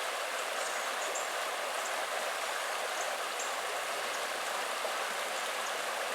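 Steady rushing of running water, even throughout, with a few faint short high ticks over it.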